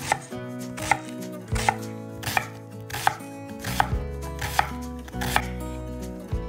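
Kitchen knife cutting food on a cutting board in slow, even strokes, about one chop every three quarters of a second, roughly nine in all.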